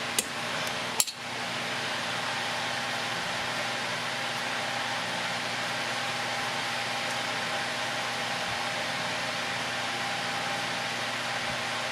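Steady whirring noise of a fan or similar blower, with two sharp clicks in the first second.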